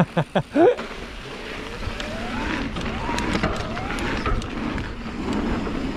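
E-mountain bike being ridden on a dirt trail: rumbling tyre and wind noise with a faint whine from the motor that rises and falls in pitch, and a few short ticks.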